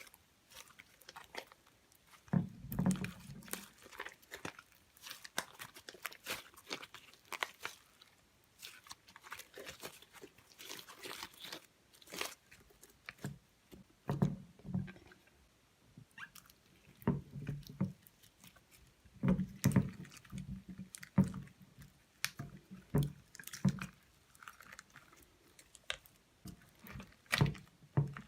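Slime being kneaded and squished by hand, with makeup worked into it: sticky, wet clicks, crackles and little pops in irregular bursts, with soft thuds as the slime is pressed and folded.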